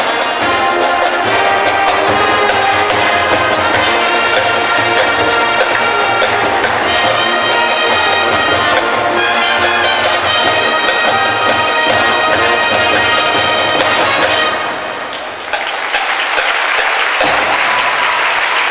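Marching band of brass, woodwinds and drums playing a pop tune loudly, with the arena's echo; the music ends about three quarters of the way through and is followed by crowd applause.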